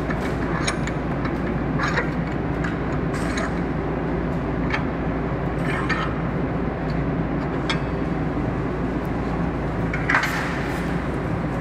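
Metal clicks and knocks at irregular intervals from a bench vise clamped on a steel welding-machine handle, the loudest about ten seconds in, over a steady low hum.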